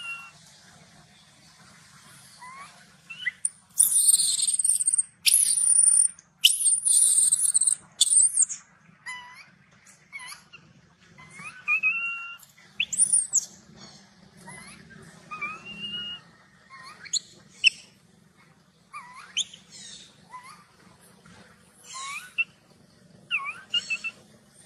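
Young long-tailed macaque giving repeated short, whimpering distress cries that rise and fall in pitch. A run of loud, shrill macaque screams comes about four to eight seconds in.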